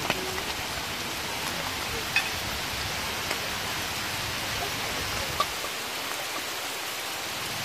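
Small fish frying in a wok of hot oil, a steady rain-like sizzling hiss, with two sharp clicks about two seconds and five and a half seconds in.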